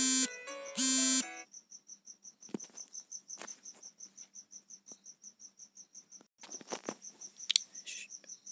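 Phone alarm ringing in short repeated musical tones, cutting off a little over a second in. After that, crickets chirp faintly and steadily about three times a second, with a few soft knocks.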